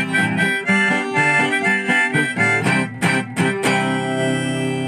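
Background music: a harmonica-led tune over guitar, with a few plucked or strummed guitar strokes about three seconds in.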